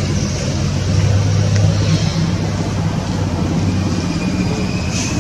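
A steady low motor rumble with a hum that holds one pitch, and a faint thin high tone near the end.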